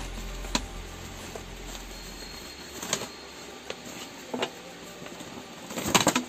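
Thin plastic rain cover being unfolded and handled: scattered crinkles and crackles of the plastic sheet, with the densest and loudest crackling near the end.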